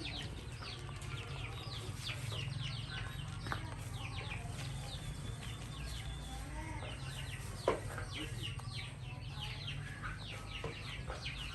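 A chorus of birds chirping: many short, high chirps falling in pitch, overlapping throughout, with one sharp click about two-thirds of the way through.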